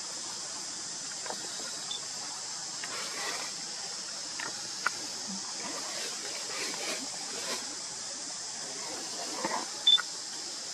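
Forest ambience: a steady high-pitched hiss with faint scattered rustles of dry leaves as the monkeys shift on the leaf litter. There is a single sharp click a little before the middle, and a brief louder sound with a short high note near the end.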